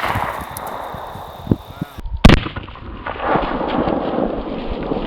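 Glock 23 .40-calibre pistol shot: its echo and the splatter fading away, then about two seconds in a single loud crack again, muffled and drawn out, followed by a long low rumble, as the shot replays slowed down.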